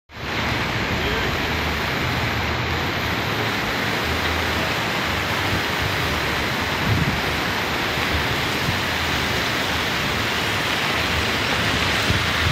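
Steady rushing noise of a muddy, flood-swollen river running bank to bank.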